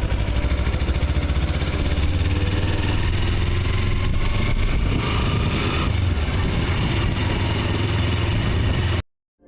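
A cat purring right against the microphone, a loud, steady, fluttering low rumble that cuts off abruptly about nine seconds in.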